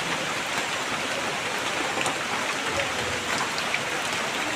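Steady rain falling, with separate drops ticking on a surface close by.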